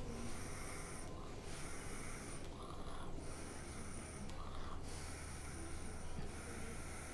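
Long drag on a Magoo rebuildable e-cigarette atomizer fired at 9 watts: a steady airflow hiss through the atomizer with a few short breaks.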